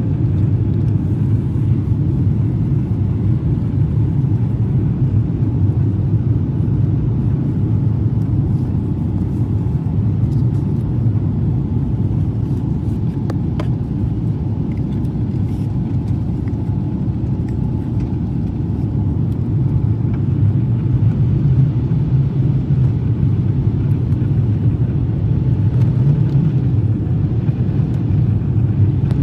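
Steady low roar of a jet airliner in flight, heard from inside the passenger cabin: engine and airflow noise.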